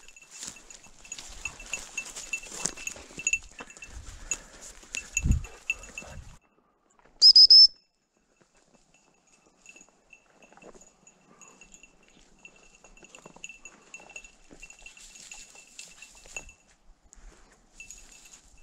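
A gundog's collar jingling quickly and irregularly as the dog moves through dry leaves and brush, with rustling and small clicks. About seven seconds in comes one short, loud whistle blast that rises in pitch. Lighter jingling and rustling follow later.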